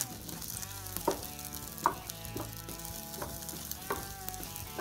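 Rice and diced onion sizzling in oil in a nonstick frying pan, stirred and scraped with a wooden spatula as the rice toasts before any liquid goes in.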